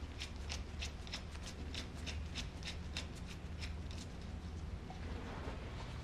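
Steel lock nut being spun by hand down the threaded rod of a 2014 Suzuki GSX-R750 front fork: light metallic ticks, about four a second, stopping about four and a half seconds in. A low steady hum runs underneath.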